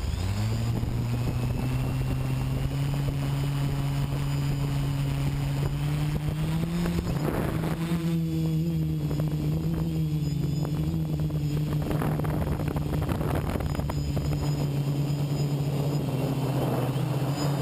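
Quadcopter's electric motors and propellers running with a steady pitched buzz. They spin up right at the start, rise in pitch about seven seconds in, then hold steady in flight.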